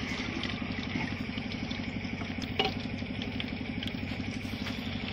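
A motor running steadily at idle with a rapid, even pulse, under a faint hiss; one sharp click about halfway through.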